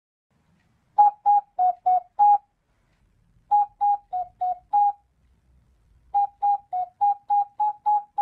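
Channel intro jingle of short, clipped notes alternating between two close pitches, about three notes a second. It comes in phrases: five notes, a pause, five more, then a longer run that carries on past the end.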